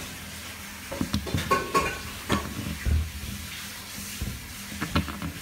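Beagle pawing and licking at a glass pane: claws tapping and scraping on the glass and mouth noises against it, in irregular scuffles, with a short squeak about a second and a half in.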